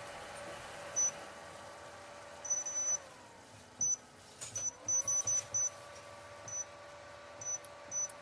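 Induction cooktop's touch-control panel beeping again and again as its buttons are pressed, short high identical beeps, some in quick runs. Under them the hob's steady electrical hum fades out about three seconds in and comes back a moment later as the power setting is changed.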